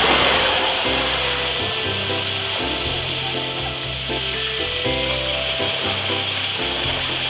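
Water splashing and churning as a polar bear plunges into its pool and moves about in it with an ice block, loudest at the first plunge, over background music.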